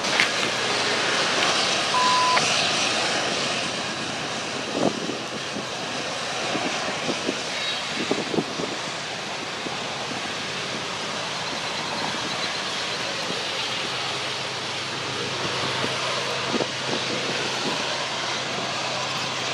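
Diesel-hauled freight train running past, a steady rushing noise over a low engine hum, with scattered knocks.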